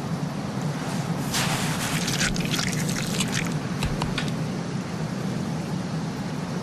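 Wet squelching and dribbling as a leatherback turtle's eggs drop into the sand nest, in a cluster of short crackles for a couple of seconds, over a steady low drone.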